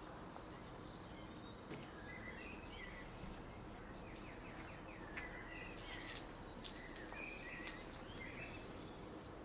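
Steady low outdoor background noise, with small birds chirping and twittering in short calls from about two seconds in.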